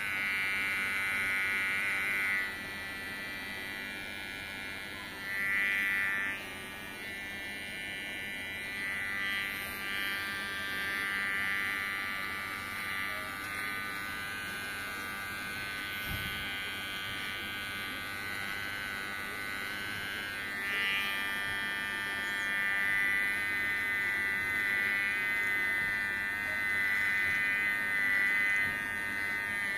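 Kemei electric hair clipper buzzing steadily as it trims a beard, its hum swelling briefly now and then as the blades pass through the hair.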